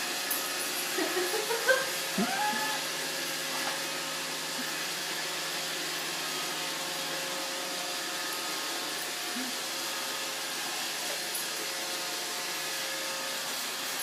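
Roomba robot vacuum running with a steady whirring hum. In the first few seconds a few short whines rise and fall over it, and there is a single knock about two seconds in.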